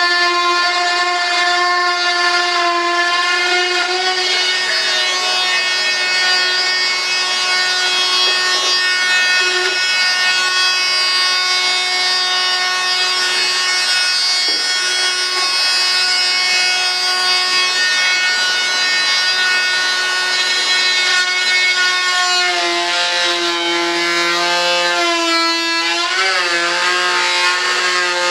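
Handheld high-speed rotary tool running with a steady high whine as it trims the excess fiberglass flange off a fresh layup. About 22 seconds in the pitch pattern shifts and a lower tone joins, then holds steady again.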